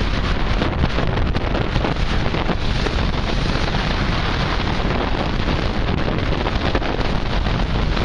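Steady wind buffeting the microphone on a moving ferry's deck, over the rush of sea churned white along the hull: a loud, even, unbroken noise.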